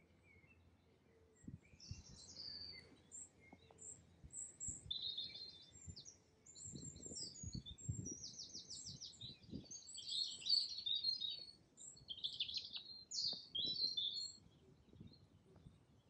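A small songbird singing a long run of quick, high twittering phrases and rapid trills, with soft low thuds of footsteps underneath.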